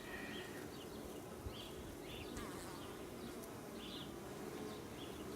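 Honeybees buzzing steadily around an opened hive, an even drone.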